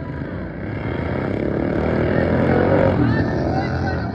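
Engines of modified racing lawnmowers running hard at race speed, growing louder to a peak about three seconds in.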